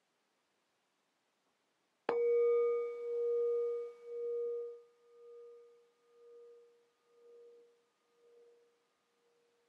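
A singing bowl struck once about two seconds in. It rings with one clear tone and fainter higher overtones, the sound pulsing about once a second as it slowly fades.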